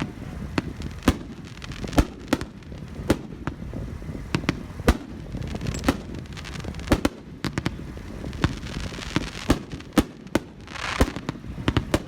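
Consumer fireworks cakes firing 2-inch shells: a steady string of sharp booms, about one or two a second, with a crackling burst near the end.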